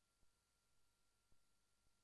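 Near silence: faint steady hiss with a few tiny clicks.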